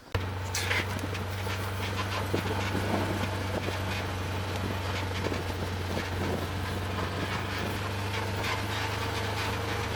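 A vehicle's engine running steadily as it drives, a low even hum with loose light rattling and clicking over it.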